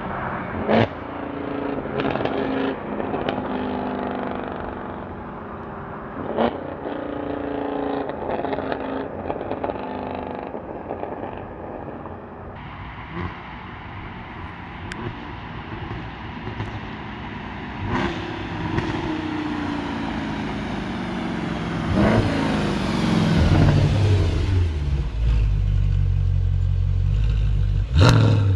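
Mercedes C63 AMG V8 on catless long-tube headers with the secondary cats and resonators deleted, running and revving at low rpm, its pitch rising and falling, with several sharp cracks. Its sound turns louder and deeper near the end.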